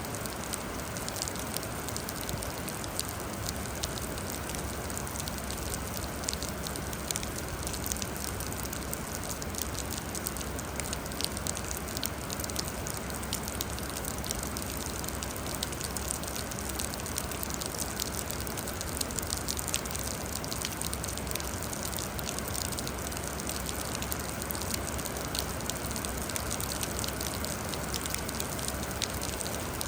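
Steady rain: an even hiss dotted with many sharp ticks of individual drops.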